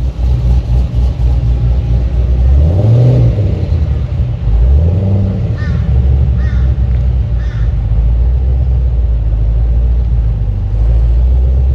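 V8 car engine running with a deep rumble. It is revved twice, rising in pitch about three and five seconds in, then settles back to a steady low drone.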